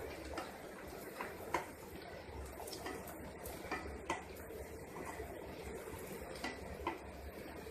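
Metal spatula clinking and scraping in a kadhai as chopped vegetables are stirred, with irregular light clicks.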